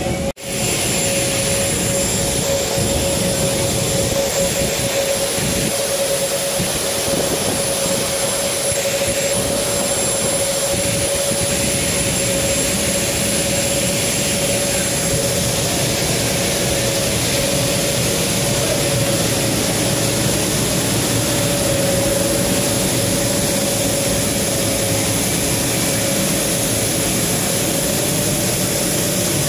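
Steady jet-turbine noise, a rushing sound with a constant mid-pitched whine and a faint high whistle that hold the same pitch, with a brief drop-out just after the start.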